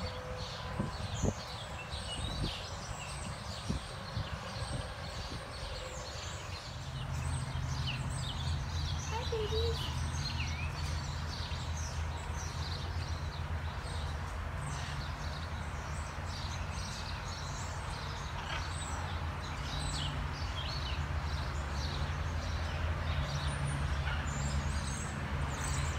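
Small birds chirping and twittering over outdoor ambience. About seven seconds in, a steady low hum joins and carries on underneath.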